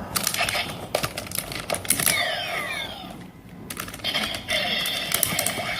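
CSM Kamen Rider Kabuto transformation belt toy playing its attack sound effects: a run of sharp plastic clicks as it is worked, falling electronic sweeps about two seconds in, then a sustained electronic tone after a brief dip.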